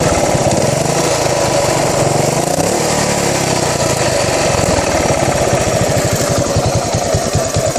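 2008 Buell Blast's single-cylinder engine running, its speed dropping about three seconds in, then settling into an uneven, pulsing idle: the rough idle the owner is recording.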